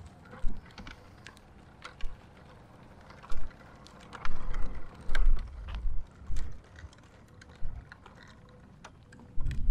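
Wind buffeting an action camera's microphone in irregular loud gusts of low rumble, with scattered light clicks and ticks between them.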